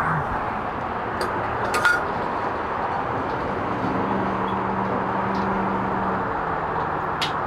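Steady rumbling background noise, joined by a low hum for about two seconds around four seconds in. A few light metallic clicks come from bolt hardware being handled by hand at the top of a galvanized steel post.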